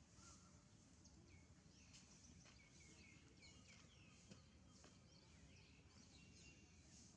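Faint outdoor ambience: many small bird chirps, and a high hiss that swells and fades over and over, above a low rumble.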